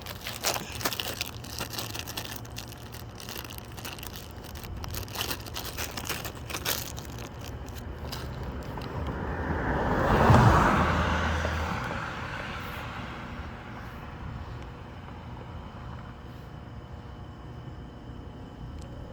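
A road vehicle passing by, building to its loudest about ten seconds in and then fading away. Before it comes a run of quick crackles and clicks.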